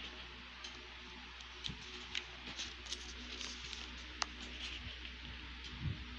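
Paper pages of a printed textbook being handled and turned: soft rustles and light clicks, with a low thump near the end, over a steady faint hum.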